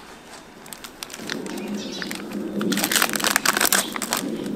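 Plastic food packaging crinkling and rustling as it is handled and opened, loudest for about a second and a half past the middle. Light clicks of chopsticks against a steel mixing bowl come before it.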